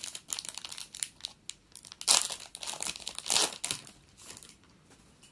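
Foil wrapper of a hockey card pack crinkling and tearing as it is opened, in irregular bursts that are loudest about two and three seconds in and die down near the end.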